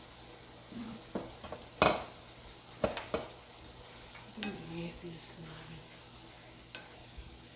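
Sliced mushrooms sizzling in a copper-coloured frying pan as a spatula stirs them, with several sharp knocks and scrapes of the spatula against the pan, the loudest about two seconds in.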